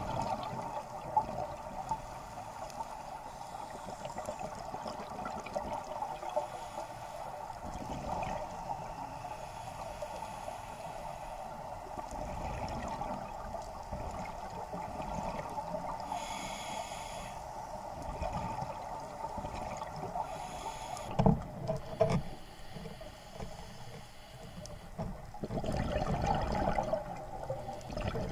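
Underwater ambience heard through an action camera's waterproof housing: a steady muffled hiss, with a few low thumps about two-thirds of the way in and a louder stretch of noise near the end.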